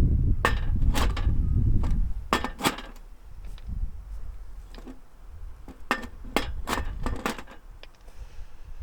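A dozen or so sharp, irregular clicks and knocks of hard objects being handled and set against each other, with a low rumble under the first two seconds.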